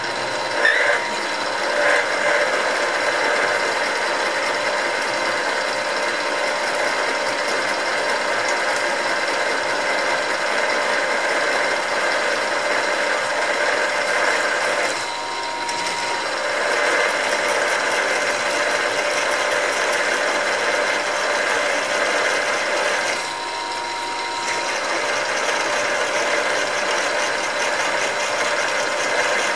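A milling machine drilling a hole through thick steel plate: the spindle runs with a steady whine while the twist drill grinds through the metal. The cutting noise eases off briefly twice, about halfway through and again around three-quarters through.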